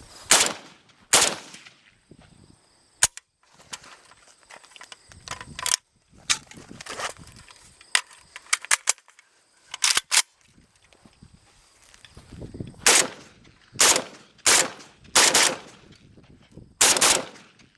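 Gunshots from a semi-automatic firearm: about a dozen single shots at an uneven pace, with a quicker string of five near the end.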